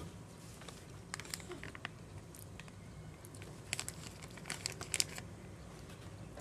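Thin plastic food packaging crinkling and crackling as it is handled and torn open, in two bursts: one about a second in and a louder one about four to five seconds in.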